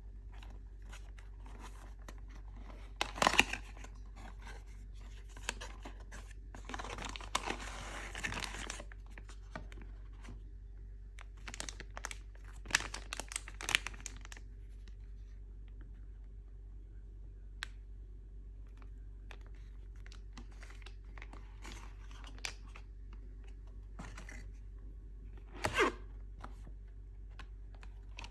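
Mooncake packaging being torn open and handled: tearing and crinkling of wrapping. The tearing comes in scattered rustles and a few sharp bursts, with one longer tear about a third of the way in, over a steady low hum.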